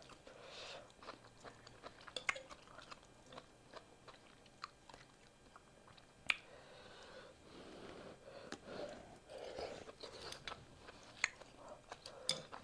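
Mouth sounds of someone chewing beef pho noodles, soft and wet, broken by a few sharp clicks, the loudest about six seconds in.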